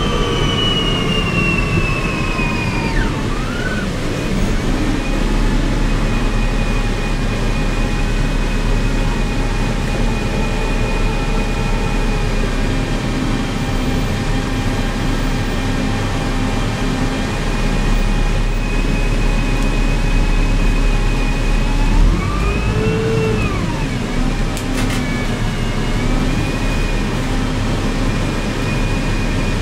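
A 1998 New Flyer C40LF bus, its Cummins C Gas Plus engine modified to run partly on hydrogen, heard from inside the cabin: a steady drone with a high whine. The whine slides down in pitch in the first few seconds, holds steady, then rises and falls once a little past two-thirds of the way through.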